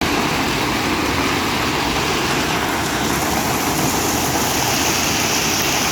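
Hailstorm: hail and heavy rain coming down as a loud, dense, unbroken hiss.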